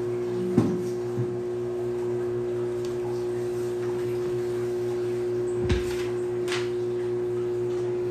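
Sheets of paper being handled on a desk close to a desk microphone, with a few sharp knocks, the loudest just over half a second in and another near six seconds. A steady hum runs underneath.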